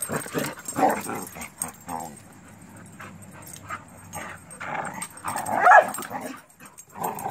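Several dogs play-fighting, giving short yips and barks, with the loudest cry a little past halfway.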